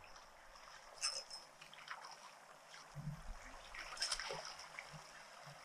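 Quiet river-bank sound: faint running water, with two short light clicks about a second in and about four seconds in as a spinning rod and reel are cast and the lure retrieved.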